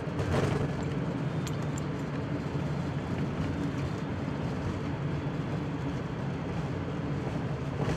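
Flight-deck noise of an Airbus A350-900 rolling out on the runway after touchdown: a steady low rumble from the wheels and from the Rolls-Royce Trent XWB engines in reverse thrust as the aircraft decelerates, with a few faint rattles in the first couple of seconds.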